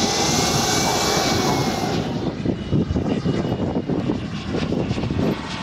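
Engine of a large-scale RC model warplane running, a steady drone whose pitch rises slightly and then falls. The sound changes abruptly about two seconds in, to a rougher, more uneven engine noise.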